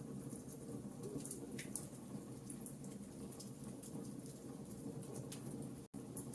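Wood fire crackling in a fireplace: scattered sharp pops and snaps over a steady low rumble of burning. The sound drops out completely for an instant near the end.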